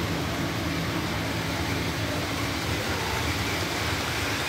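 Steady low rumble and hiss of a model railway hall, with model trains running on the layout.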